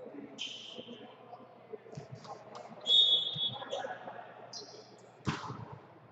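A referee's whistle blown once, a short high shrill note about three seconds in, signalling the serve. About two seconds later comes a sharp slap of a volleyball being struck on the serve. Players' voices call out in the hall around them.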